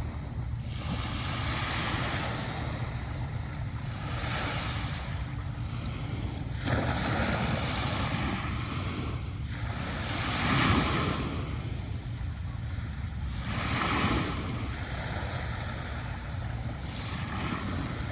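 Sea waves breaking and washing up onto a sandy beach, about six surges one after another every few seconds, the loudest about ten seconds in, over a steady low rumble.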